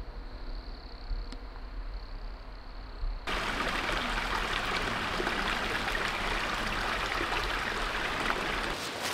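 Quiet woodland air with a faint steady high tone, then, about three seconds in, a small forest stream suddenly comes in, running steadily over stones.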